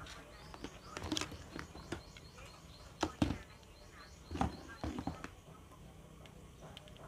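Scattered clicks and knocks of wires and a plastic electrical fitting being handled on a workbench, the loudest a few knocks about three and four and a half seconds in, over a faint steady low hum.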